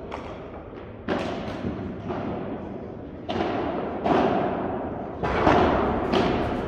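Padel ball being struck back and forth in a rally: about seven sharp knocks roughly a second apart, each echoing on in the large indoor hall.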